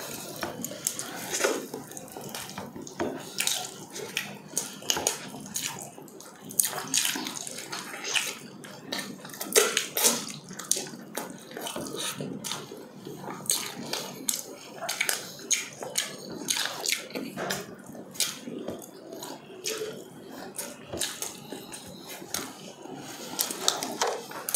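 Two people chewing and smacking their lips, with wet mouth sounds and frequent irregular clicks as they eat rice and meat with their hands.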